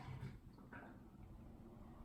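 Faint sounds from inside an AEG dishwasher during its prewash: two brief soft swishes in the first second, then a faint low hum.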